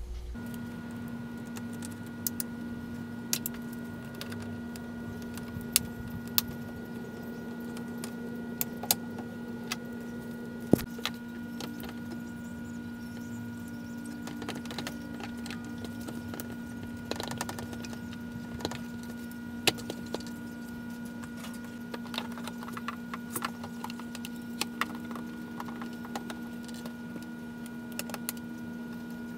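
Scattered clicks and light knocks of hands and parts being handled in a car's engine bay during reassembly, over a steady low hum.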